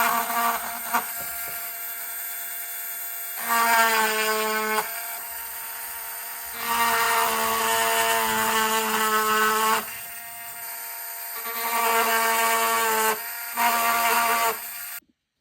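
Dremel rotary tool running with an engraving bit, engraving a Swiss Army knife: a steady whine that gets louder and brighter in four stretches as the bit cuts, then stops abruptly near the end.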